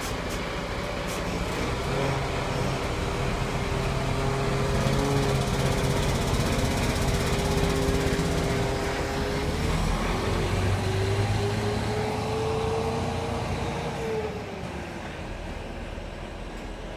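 Diesel engine of a coach bus pulling away under loud acceleration. The engine note holds, breaks about ten seconds in and climbs again, then falls away and fades as the coach drives off, about fourteen seconds in.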